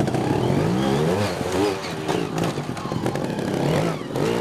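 Trials motorcycle engine revving in short bursts, the pitch rising and falling with each blip of the throttle as the bike is lifted up onto a rock.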